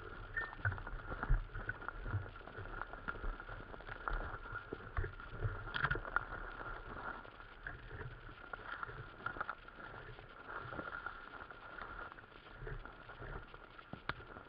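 Footsteps and rustling through woodland undergrowth and leaf litter, with scattered knocks and thuds from walking with the camera. A steady high ringing tone runs beneath.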